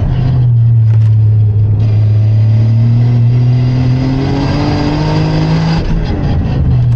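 Toyota GR Yaris's turbocharged three-cylinder engine heard from inside the cabin, pulling hard in third gear. Its pitch climbs steadily for about five seconds, then drops suddenly near the end as the throttle comes off.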